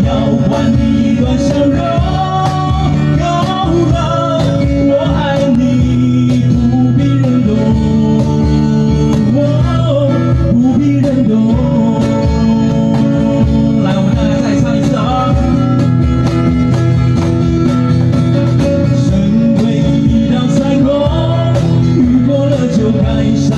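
Live acoustic band music: two acoustic guitars strummed over a steady cajón beat, with singing over the top, played through a PA.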